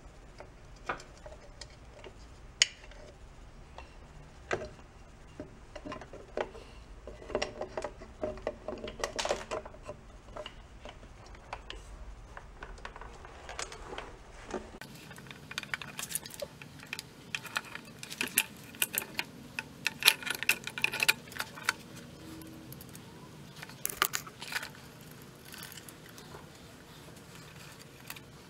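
Small metal fasteners and the plastic housing of a pressure cooker being handled: scattered light clicks, clinks and taps. A sharp click comes about two and a half seconds in, and a dense run of clinks comes around twenty seconds in.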